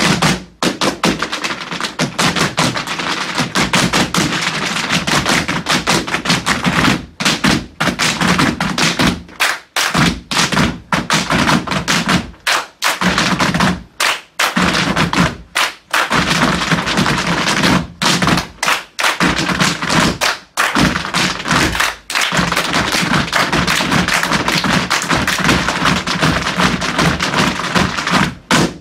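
A group of tap dancers tapping together on a wooden floor: dense, fast runs of tap-shoe strikes, broken by several short stops.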